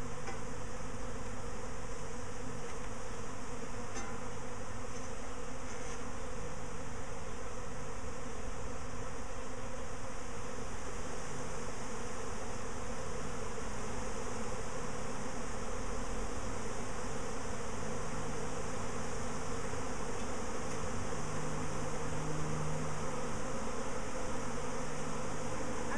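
A swarm of honeybees buzzing: the dense, continuous hum of many bees, steady in level throughout.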